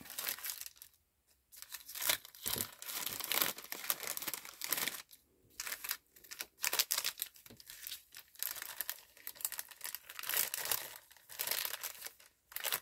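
Clear plastic bag crinkling in repeated irregular bursts as it is pressed and folded around paper craft pieces.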